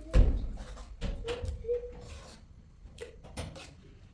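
A heavy thump just after the start, followed by several lighter knocks and clatter.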